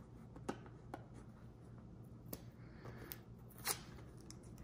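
Stickers being peeled by hand off the fabric underside of a baseball cap's brim: a few faint scratching ticks as fingernails pick at the adhesive, the loudest about a second before the end.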